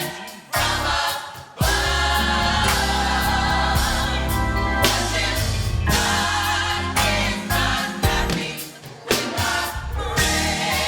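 Youth gospel choir singing with full instrumental backing: strong bass under the voices, with short drops in the music near the start and again near the end.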